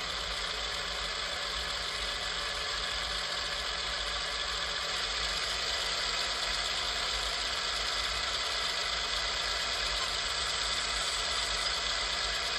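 LokSound 5 sound decoder playing its diesel locomotive engine sound at raised throttle, running steadily through small speakers not yet mounted in the shell.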